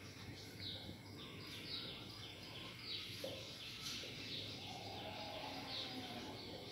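Marker pen squeaking against a whiteboard while letters are written: a string of short, high squeaks, each falling slightly in pitch, one or two a second.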